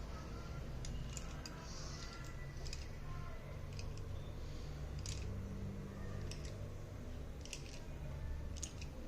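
Irregular small clicks and light taps of slate pencils and their packaging being handled, over a steady low hum.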